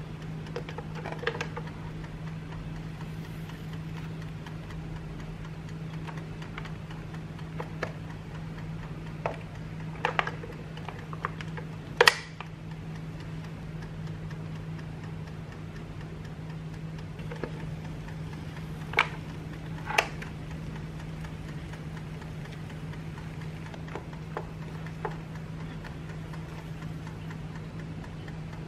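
Electric sandwich maker heating with its lid closed, its clockwork dial timer ticking over a steady low hum. A handful of sharp clicks stand out, the loudest about twelve seconds in and two more about a second apart near twenty seconds.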